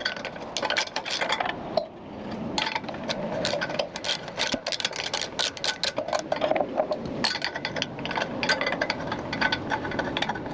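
Ratchet wrench clicking in quick runs while undoing bolts on a lawn tractor's engine, with metal parts rattling. There is a short pause about two seconds in.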